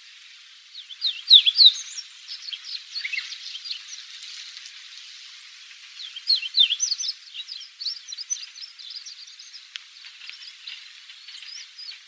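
Chestnut bunting subsong: a rambling twitter of rapid, high, sliding chirps in two bouts, the first starting about a second in and the second about six seconds in, over a faint steady hiss.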